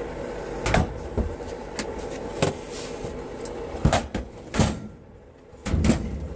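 A series of separate knocks and clunks, about six of them, made by things being handled and set against a surface. There is a heavier, lower thud near the end.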